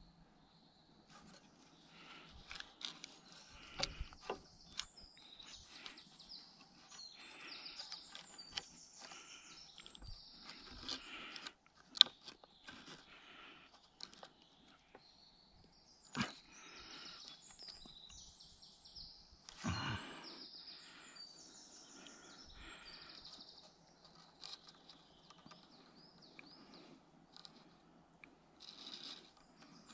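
Small birds singing and chirping throughout, over the rustle and creak of cord being pulled tight and tied around wooden poles. There are a few sharp clicks and knocks, the loudest a sharp click around the middle.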